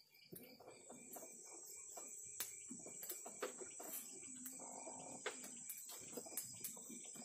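Insects, likely crickets, keeping up a steady high-pitched trill that sets in about a second in, over scattered sharp crackles and pops from the wood fire roasting the eggplant.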